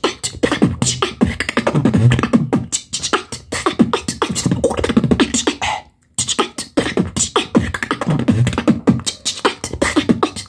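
Solo beatboxing: fast, dense drum-like beats made with the mouth, sharp clicks over deep bass sounds, with a split-second stop about six seconds in before the beat picks up again.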